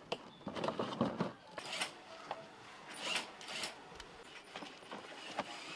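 Irregular clicks, taps and short rustling scrapes of hand work on lion dance heads.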